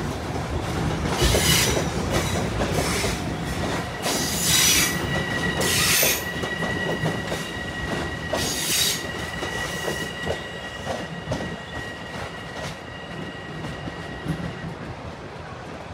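A commuter train rolling through the junction trackwork with its wheels squealing: several short screeches in the first nine seconds, and a steady high squeal from about four seconds in that stops near the end. Under it is the rumble and clatter of the train rolling over the rails, easing off over the second half.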